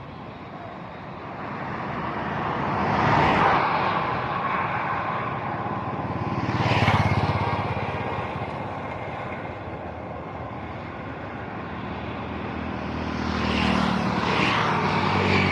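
Road traffic: a steady background hum with several vehicles passing one after another, each rising and fading. The loudest passes come about three seconds in, about seven seconds in, and a pair near the end.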